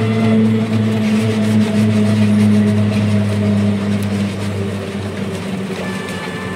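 Engine of a moving road vehicle running steadily, heard from inside it as it drives along, with an even hum of road noise. The drone eases a little in pitch and loudness about two-thirds of the way through.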